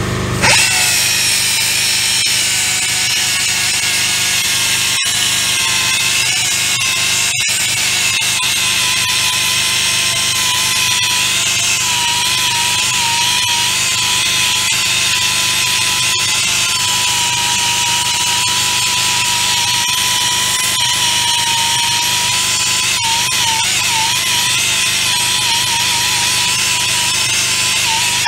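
Powered sanding-belt file running steadily while its belt grinds the inside of a Volkswagen waterboxer engine case, clearancing the spigots so the connecting-rod bolts of a longer-stroke crankshaft will clear. The motor's high whine wavers slightly in pitch as the tool is pressed into the metal.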